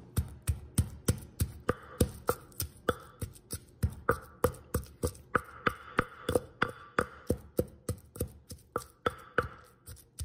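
Wooden pestle pounding roasted garlic, shallots and Thai chilies in a clay mortar, crushing them to a paste. Steady, even strikes, about three a second.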